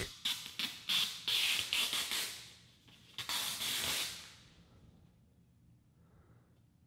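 Protective plastic film being peeled off a clear plastic insert panel: a crackling, tearing hiss in two pulls of a couple of seconds each, then quiet.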